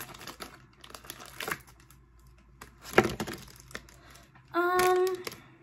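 Crinkly plastic blind bag being handled, torn open and rustled as a small keychain figure is pulled out, with a sharp crackle about three seconds in. Near the end comes a short, held vocal hum from the woman opening it.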